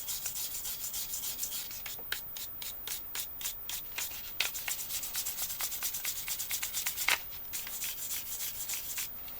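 Quick back-and-forth scrubbing strokes on the freshly soldered negative end of an 18650 lithium-ion cell, cleaning up the solder spot; the strokes come fastest between about two and four and a half seconds in.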